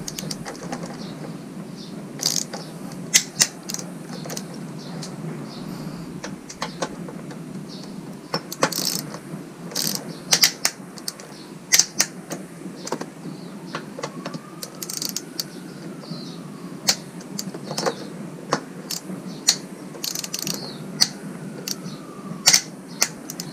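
Irregular metallic clicks and taps of hand tools working the front end of a Suzuki DR650 motorcycle while the front forks are being aligned, over a steady low hum.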